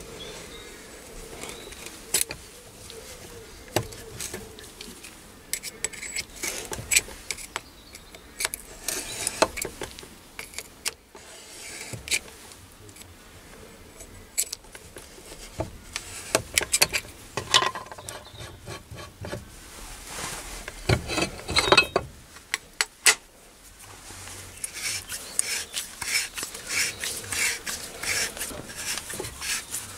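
Irregular metal clicks, taps and scraping as a steel pin punch and the HW80 air rifle's steel compression tube are handled in a spring compressor. Denser runs of scraping and clicking come around a third of the way in, in the middle, and near the end.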